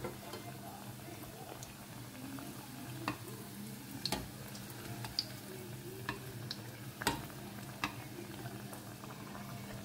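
Two breaded prawn rissóis deep-frying in hot oil, sizzling steadily, over a low steady hum. A handful of sharp taps sound through it, the loudest about four and seven seconds in.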